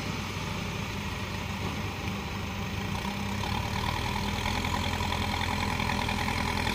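Backhoe loader's diesel engine running steadily while it works the material pile, growing a little louder about halfway through.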